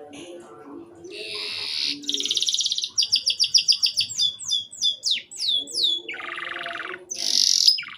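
Domestic canary singing a fast, varied song: buzzing trills, a run of rapid repeated notes, then a string of falling whistled sweeps, ending in more buzzy trills.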